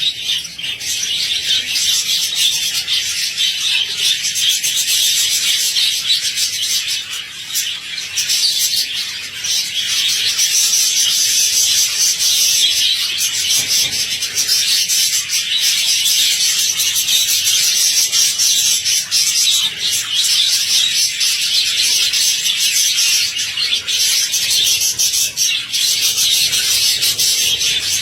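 A colony of budgerigars chattering and chirping all together in a dense, unbroken high-pitched din.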